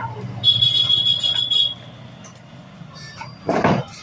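A high, rapidly pulsing tone for about a second, then about three and a half seconds in a hand spray bottle spritzing water onto hair with one short hiss.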